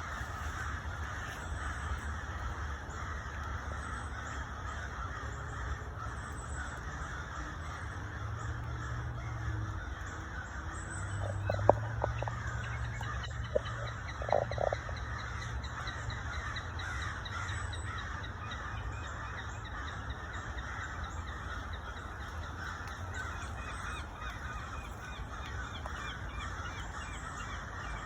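A large flock of birds calling all at once, a dense, continuous chatter of many overlapping voices, with a few sharp knocks about halfway through.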